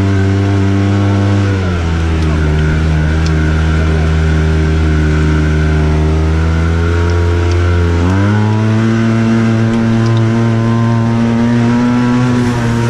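Arctic Cat Wildcat Trail 700 side-by-side's twin-cylinder engine running under way, heard from on board. The engine note drops about two seconds in, holds steady, then climbs to a higher steady pitch about eight seconds in as the throttle is opened.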